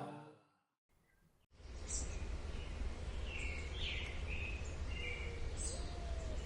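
Music fading out, a second of silence, then outdoor ambience: birds chirping, with a few short whistled notes, over a steady low rumble.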